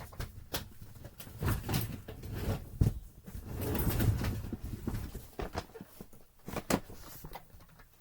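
Handling noise: clicks, knocks and rustling as things are picked up and moved, with a low scraping rumble around the middle and a sharper knock near 3 seconds.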